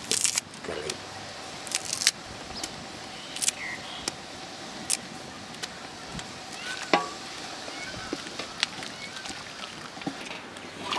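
Scattered clinks and knocks of utensils against a cooking pot while a fish curry is cooked, over a faint steady background hum.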